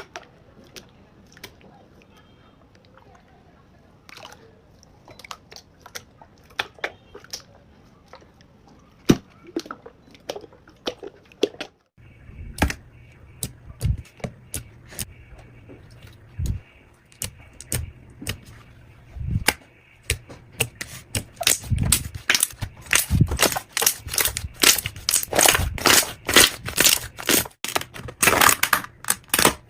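Slime being squeezed and poked by hand, giving a run of sharp pops and crackles as trapped air bursts. The pops are scattered at first and come thick and fast in the last third.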